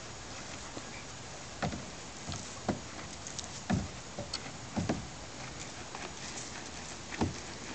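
Doberman puppy digging, its front paws scraping and thumping in the dirt in short, irregular strokes, six or seven in all.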